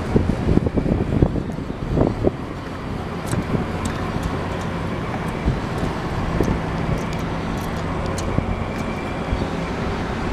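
Wind buffeting the microphone in gusts, strongest in the first two seconds, over the steady low drone of the car ferry's engines. A few light ticks come through in the middle.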